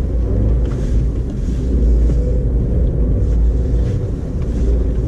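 Steady low rumble inside the cabin of a 2012 Audi A4 Quattro as it is driven with traction control off to work free of deep snow, the engine pulling and the tyres churning through the snow.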